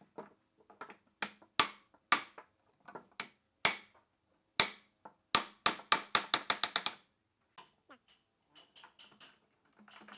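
Hammer striking a wooden block held against a table leg, driving the apron rail's joint home: separate sharp blows, then a quick run of about eight strikes at around five a second, five to seven seconds in. Faint knocks and handling sounds follow.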